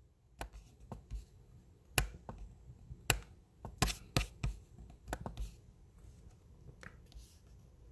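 Scattered sharp clicks of a computer mouse and keyboard, about a dozen at irregular spacing, with the loudest about two and three seconds in, as a list is randomised and selected on a web page.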